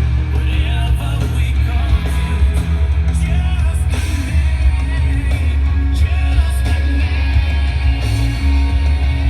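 Rock song with singing and guitar played loud through Edifier R1280DBs bookshelf speakers and a T5 subwoofer, turned up to full volume with the bass at full. The bass is heavy and runs steadily under the vocals.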